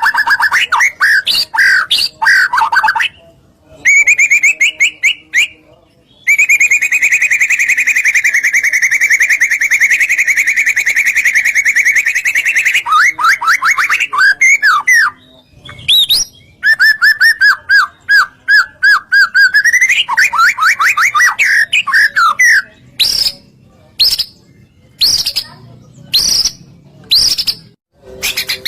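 Songbird song of rapid trills and chattering phrases, including one unbroken trill of about six seconds, then a string of short separate chirps near the end. It is a lure recording of the kind played to make caged songbirds answer.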